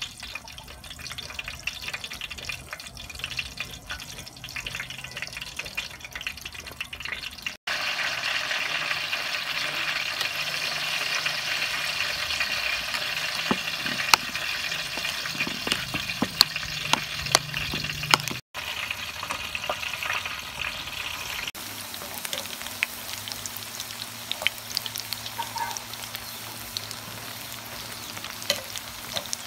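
A string of cooking sounds: a cleaver slicing mushrooms on a wooden chopping block, then a spoon stirring mushrooms in thick batter with sharp clinks against the bowl, then battered mushrooms deep-frying and sizzling in hot oil for the last several seconds.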